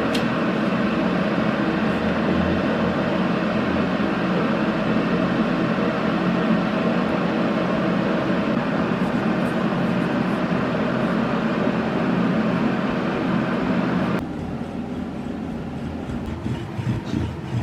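A steady mechanical running sound, like an electric appliance motor, that cuts off abruptly about fourteen seconds in, leaving a quieter hum with a few light knocks.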